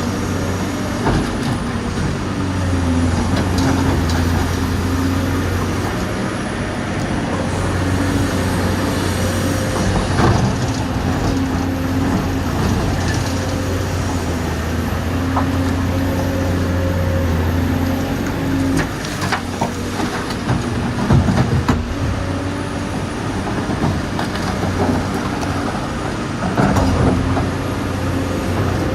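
Dubbed-in sound of a real excavator's diesel engine running steadily, its pitch and loudness swelling and easing every few seconds as the hydraulics take load, with scattered sharp metallic clanks and knocks.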